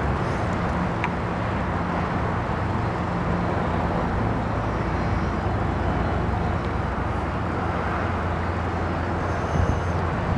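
Goodyear blimp's engines and propellers running steadily while it hovers just above the ground, a low, even hum, with a few faint knocks near the end.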